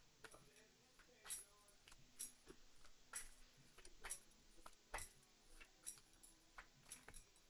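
Near silence with faint, sharp clicks about once a second over faint steady tones.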